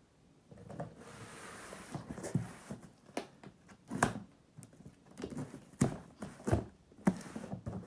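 A taped cardboard package being pulled open by hand: a rasp of tape or cardboard tearing, then several sharp cracks and knocks as the box is wrenched at, the tape holding fast.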